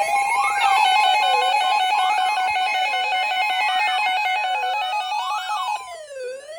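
Emergency alert attention tones: several electronic alarm tones layered together, one sliding up and down about every second and a half over a rapid steady beeping and higher tones. Several layers stop about five and a half seconds in and the rest thins out.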